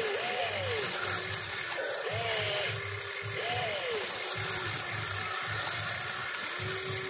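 Electric motors of a toy RC excavator whining up and down in several short sweeps as the arm and bucket move, with a steady high whine over a low regular chatter.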